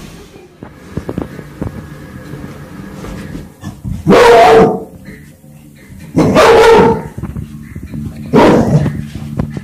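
A dog barking three times, about two seconds apart, each bark loud and drawn out.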